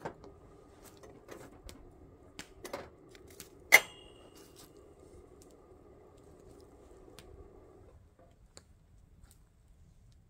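A pot of water boiling on a gas camp stove: a steady sound that stops about eight seconds in, when the heat is cut or the pot comes off. Scattered metal clinks and handling knocks sit over it, the loudest a single ringing clink about four seconds in.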